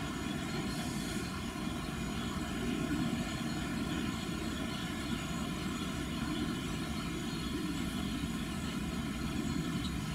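TEP70 passenger diesel locomotive's V16 diesel engine running as the locomotive approaches slowly: a steady low rumble with a faint hum above it.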